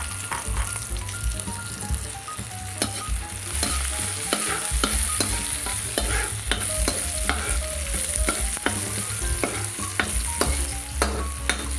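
Sliced red onion and garlic sautéing in hot oil in a metal pan: a steady sizzle, broken by frequent sharp clicks and scrapes as the food is stirred against the pan.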